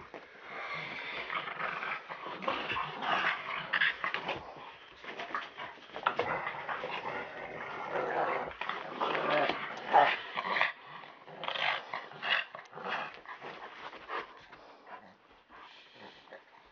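A Rottweiler and a black Chinese pug play-fighting with a person, growling in play amid scuffling, dying down near the end.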